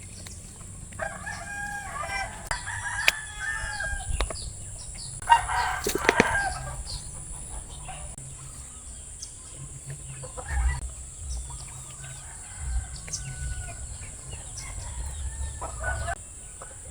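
Domestic chickens clucking and a rooster crowing. The calls come in spells, the loudest about one to three seconds in and again around six seconds in, with a low rumble underneath.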